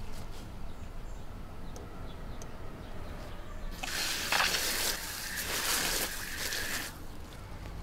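Water running from an outdoor garden tap and splashing onto a cloth held beneath it. It comes in as a loud hiss about four seconds in and lasts about three seconds, after a few faint clicks.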